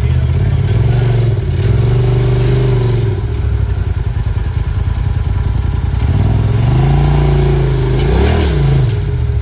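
Polaris RZR side-by-side engine revving under load as it crawls up a rock ledge, pulling harder about a second in and again from about six seconds, with a quick rise and fall in revs near the end.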